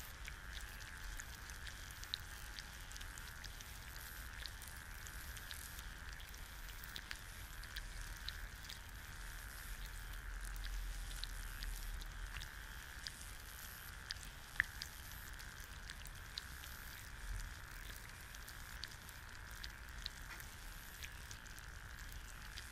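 Egg frying in a pan: a steady sizzle with small sharp pops and crackles scattered irregularly through it, one louder pop a little past the middle.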